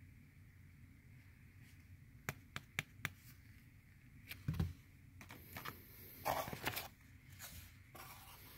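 Faint handling noise from a plastic-and-card fishing-lure blister pack and paper packaging: four quick light clicks, a soft thump about halfway, then a short crinkling rustle and light scraping.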